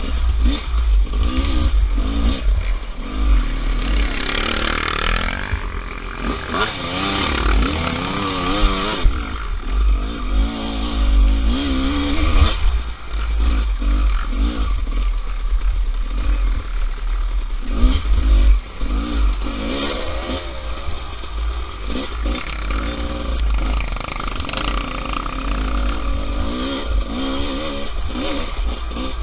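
Off-road motorcycle engine revving up and down constantly as it is ridden along a tight dirt trail, with a heavy low rumble buffeting the microphone and some clatter from the bike.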